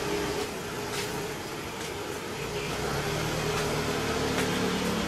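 Steady motor hum, joined about halfway through by a second, lower engine note, with faint ticks about once a second like footsteps on stone steps.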